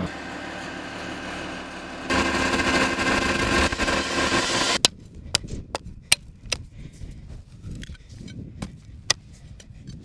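A vehicle engine running steadily, which stops abruptly about five seconds in. After it come about eight sharp, irregular knocks.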